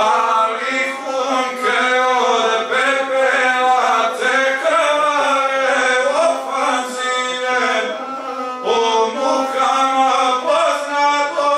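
A guslar singing an epic song to the gusle, the single-string bowed fiddle, his voice rising and falling over the instrument's steady drone.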